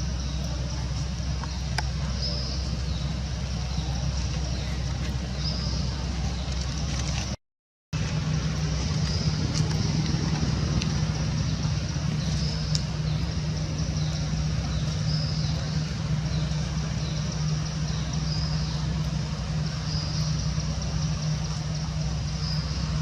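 Steady low hum of an engine running, like a vehicle idling, with short high chirps repeating every second or two. It drops out for half a second about a third of the way in, then returns with a steadier low drone.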